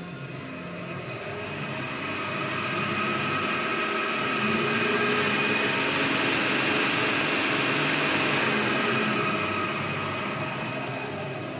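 Optimum MF4 milling machine's variable-speed spindle running, sped up with the speed control knob and then slowed again. It grows louder over the first few seconds, holds, and falls away near the end.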